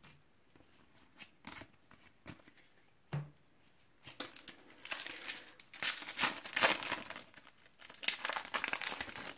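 A few light taps as trading cards are laid on a wooden table, then a Panini foil card packet crinkling and tearing open for the last five seconds or so.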